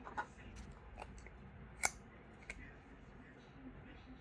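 A few sharp little clicks and snaps from slime being handled, with the loudest about two seconds in.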